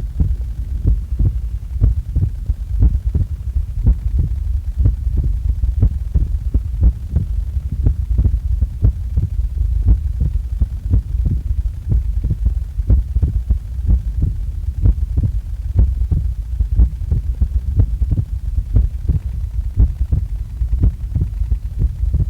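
A person's heartbeat recorded at rest just after waking: a steady rhythm of short low beats over a constant low hum.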